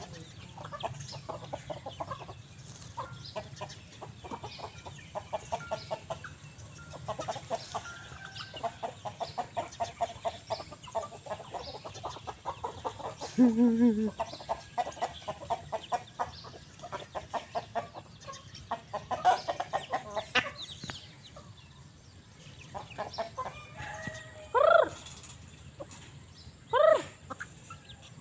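A flock of chickens clucking while they feed: a near-continuous run of quick, soft clucks. There is a short, lower call about halfway through and two loud calls near the end.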